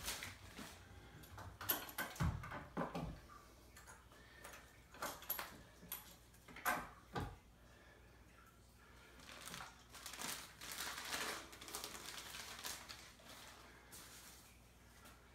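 Packaging being handled: plastic and paper wrapping crinkling and rustling as a model locomotive is unwrapped by hand, with a few soft knocks of the model and box on a table, the thumps about two and seven seconds in.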